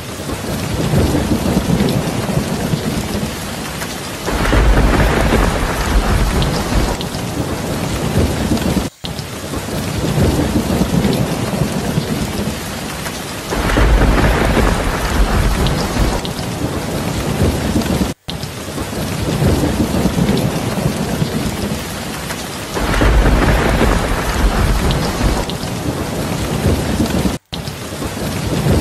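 Rain-and-thunder ambience track: steady rain with a low rumble of thunder swelling about every nine seconds, the recording looping with a brief dropout each time it restarts.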